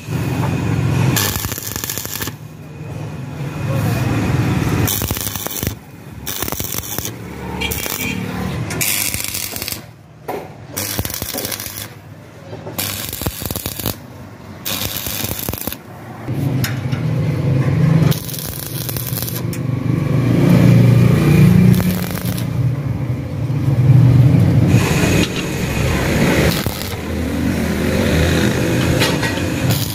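Electric arc welding in short bursts that start and stop, as iron scrollwork and studs are tack-welded onto a steel frame. A low motor drone joins in about halfway through.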